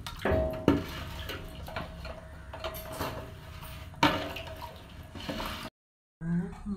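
Wooden paddle stirring coconut milk and lumps of jaggery in a large metal pan: liquid sloshing, with the paddle knocking and scraping against the pan, loudest near the start and again about four seconds in.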